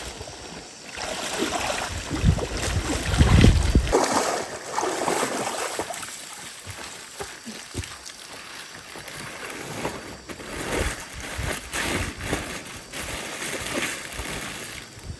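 Water splashing and sloshing in a fast-flowing stream, in irregular bursts, with a few loud low rumbles about two to four seconds in.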